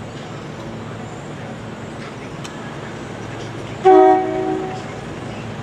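Train horn sounding one blast of several notes at once about four seconds in, lasting about a second and then fading, as a train nears the grade crossing.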